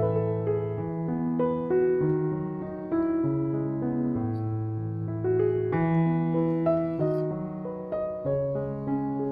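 Background piano music: a gentle melody over held bass notes that change about once a second.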